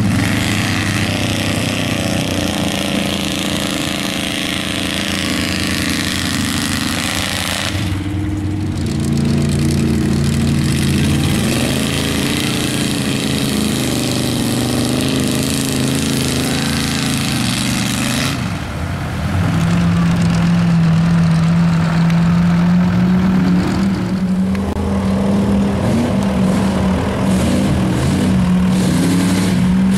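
Lifted mud-bog pickup trucks' engines revving hard as they churn through a water-filled mud pit, the engine note rising and falling with the throttle. The sound changes abruptly twice, as one truck's run gives way to another.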